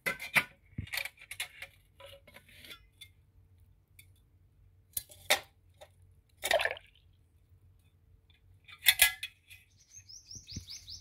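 Stainless steel bowl holding water and small catfish clinking and sloshing in several short clatters as it is handled. Near the end, a bird gives a quick run of short high chirps.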